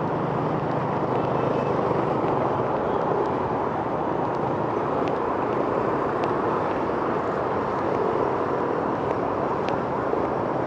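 Steady, continuous road traffic noise, with a few faint clicks scattered through it.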